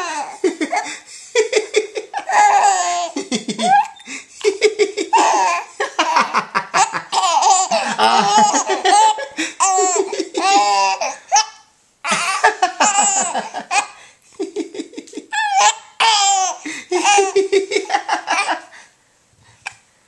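Baby laughing in long bouts, with a short break about twelve seconds in; the laughter stops shortly before the end.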